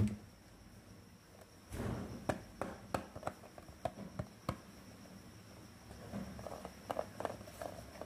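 Light clicks and taps of small plastic toy pieces being handled, in scattered clusters, with a short rustle about two seconds in.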